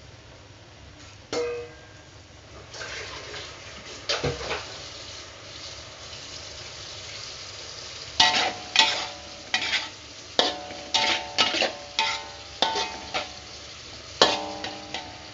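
Metal spatula stirring okra in a wok, over a light sizzle of frying. A single ringing clank comes early, then from about eight seconds in a quick run of clanks and scrapes of spatula against wok, each ringing briefly.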